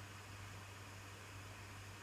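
Faint room tone: a steady hiss with a low, even hum.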